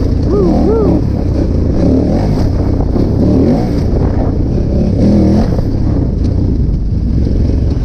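KTM 990 Adventure's LC8 V-twin engine running as the motorcycle is ridden, with wind rush over the microphone.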